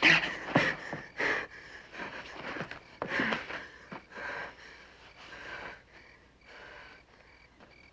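Breathy puffs and gasps of heavy breathing, coming about every half second, loudest at first and fading over the next few seconds. A faint steady high chirping runs underneath.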